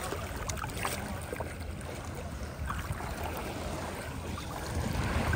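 Steady low rush of moving water, with a few faint knocks.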